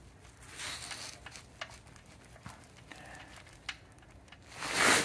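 Oil drain plug being turned out by hand from the oil pan: faint scattered clicks and rustles, then a short louder rush of noise near the end.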